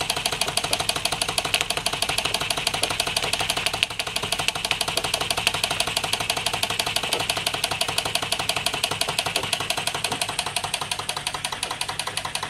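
Jensen 35 toy steam engine running on live steam with a fast, even beat, driving a Jensen #100 workshop set of belt-driven machine models.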